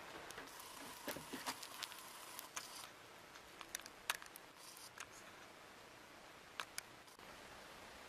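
Camera handling noise: a scatter of faint clicks and ticks from the camera body and lens as it is moved and refocused, with a faint thin whine in the first few seconds, over a low steady hiss. The clicks stop about seven seconds in.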